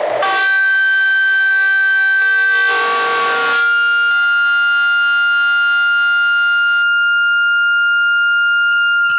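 Sustained synthesizer notes from a horror film score, held steady with the chord changing a few times.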